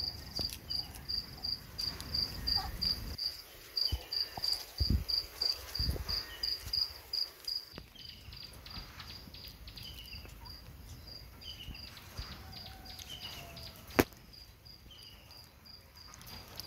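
Cricket chirping in a steady high-pitched pulse, about four chirps a second, growing fainter about halfway through. Fainter falling chirps come about once a second, and there is one sharp click late on.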